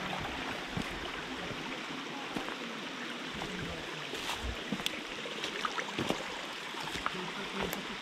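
Shallow mountain stream running steadily over stones, with the crunch and click of hiking boots stepping on dry leaves and rocks now and then.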